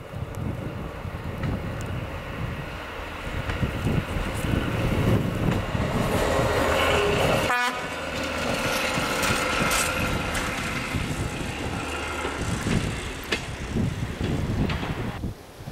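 A ČD class 810 two-axle diesel railbus with its trailer car passing close by: the diesel engine runs and the wheels rumble on the rails. It is loudest about six to ten seconds in, then fades near the end.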